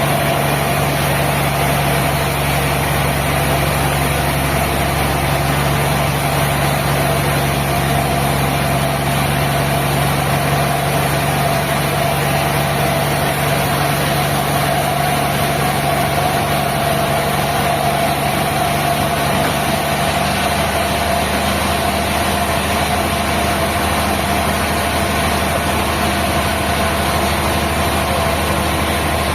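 Sawmill machinery running steadily, an even engine-like hum with a constant pitch and no change in load.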